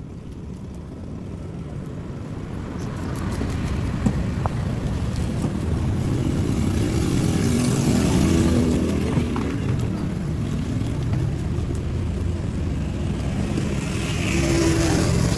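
A motor vehicle's engine running, with a steady low rumble that grows louder over the first several seconds and then holds.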